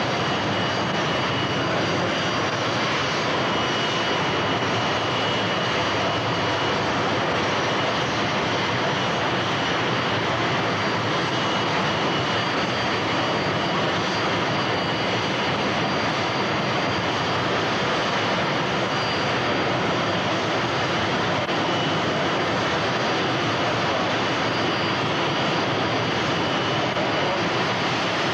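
Twin MiG-21 turbojet engines of the Big Wind fire-fighting vehicle running at steady power as a continuous jet roar, with a faint, steady high whine on top. Water is being injected into their exhaust stream to blow out a fire.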